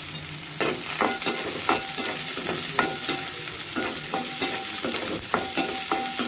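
Chopped onions sizzling in hot oil in a kadai while a spoon stirs them. The spoon scrapes the pan in repeated strokes, and the pan rings briefly with each stroke.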